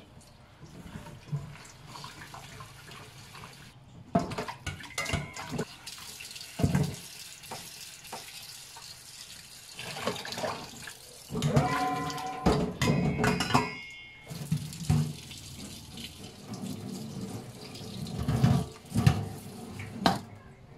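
Tap water running into a stainless steel bowl in a sink as hands rub and rinse raw chicken pieces, with splashing and several sharp knocks of the bowl and handling.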